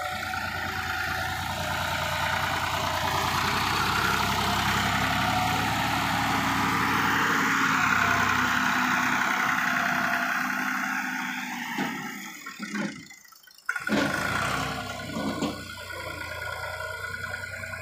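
Massey Ferguson tractor's diesel engine running steadily under load as it hauls a fully loaded sugarcane trolley close by, growing louder toward the middle. The sound drops away briefly after about twelve seconds, then the engine is heard again.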